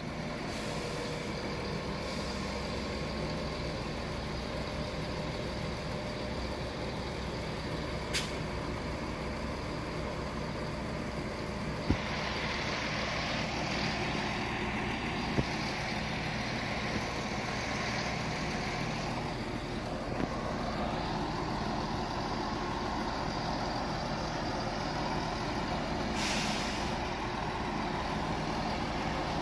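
Class 168 diesel multiple unit idling while it stands at the platform, a steady low engine hum. A few clicks and hisses of air break in, with a longer hiss in the middle.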